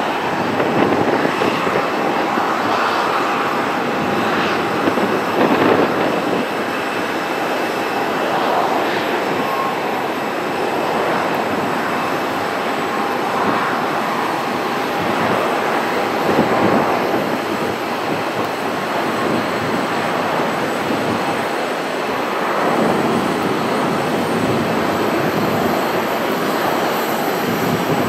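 Airbus A320 jet engines running during the landing roll just after touchdown: a steady rushing noise that swells and eases every few seconds, with a faint steady whine.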